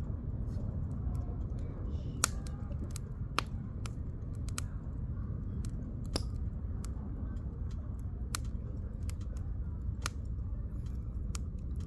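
Firewood burning in a campfire, crackling with sharp irregular pops about every second or two over a low steady rumble.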